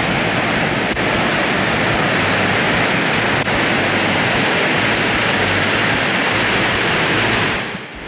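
Steady rushing roar of Fukuroda Falls, a large four-tiered waterfall, dipping briefly as it fades out near the end.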